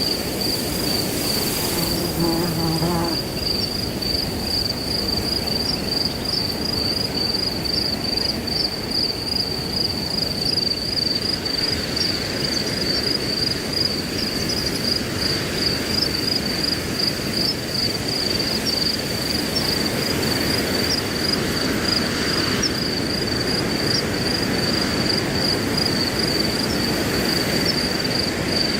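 Crickets chirping in a steady, high, pulsing trill that never stops, over wind rustling through grass. About two seconds in there is a brief, faint low pitched sound.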